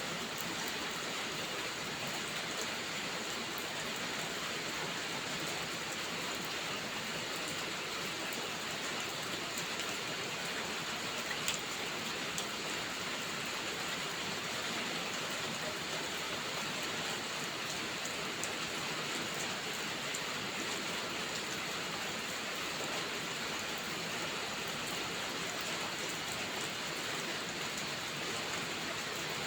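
Steady rainfall, an even hiss with scattered drop ticks; one sharper tick about eleven seconds in.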